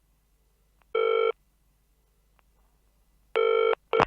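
Telephone ringing: short electronic ring tones, one about a second in and another near the end, followed by a few sharp clicks.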